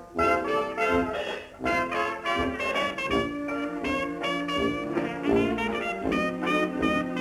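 Jazz-band soundtrack music with brass instruments playing a melody of quick, changing notes.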